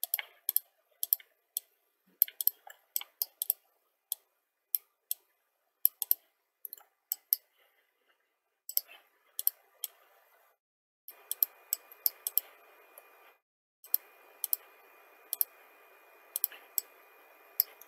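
Computer mouse clicking, irregular single clicks and quick pairs. In the second half a faint steady hiss with a thin whine runs under the clicks, with one short break.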